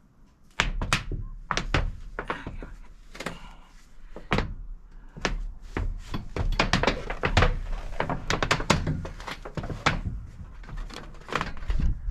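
Irregular knocks and clunks of hand tools and metal racking hardware being handled and set down on a rooftop solar array, over a steady low rumble. There are no drill or motor sounds.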